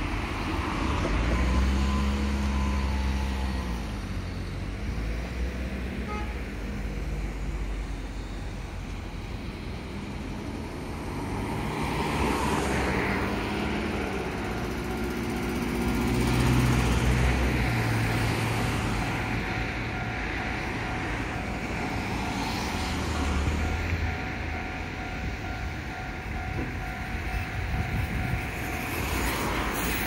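Road traffic at a city intersection: car engines running and vehicles passing one after another with tyre noise, the hum swelling and fading as each goes by.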